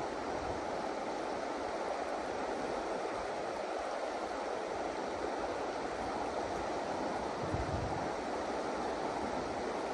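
River water rushing steadily over rocks and shallow rapids.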